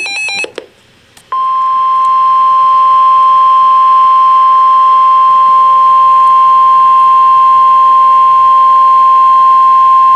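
NOAA Weather Radio 1050 Hz warning alarm tone: a single loud, steady tone that starts a little over a second in and lasts about nine seconds, signalling that an urgent warning broadcast follows. Just before it, a brief burst of SAME digital header tones ends about half a second in.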